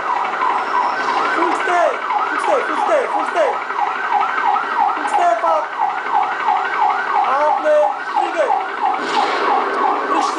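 Emergency vehicle siren on a fast yelp, sweeping up and down several times a second, with lower falling tones breaking in now and then.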